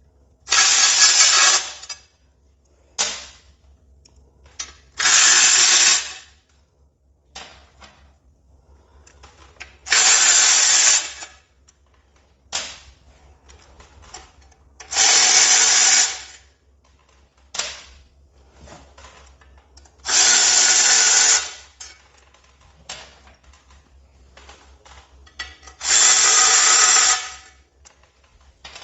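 A power drill or driver spinning fasteners out of a motorcycle's primary cover one at a time: six short runs of about a second each, roughly five seconds apart, with small clicks of handling tools and parts between them.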